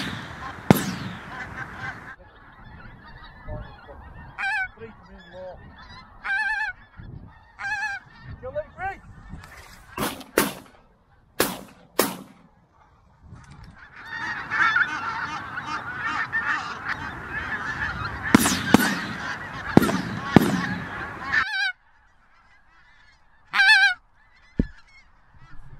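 Pink-footed geese honking, scattered calls at first, then a flock calling thickly from about 14 seconds in until it cuts off at about 21 seconds. Shotgun shots come among the calls: two in quick succession at about 10 seconds, two more at about 11.5 and 12 seconds, and more around 18 to 20 seconds.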